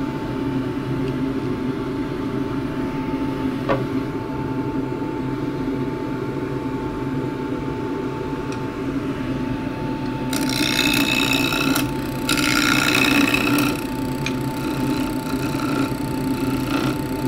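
Wood lathe running with a steady hum, spinning a juniper spatula blank; about ten seconds in, a 1-inch skew chisel cuts into the spinning wood, loudly for about three seconds with a short break, then more lightly. The wood is splintering in the middle, where the cut butts into end grain.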